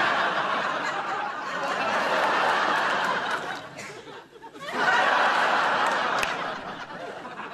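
Studio audience laughing in two waves: the laughter dies away about four seconds in, then rises again before tapering off.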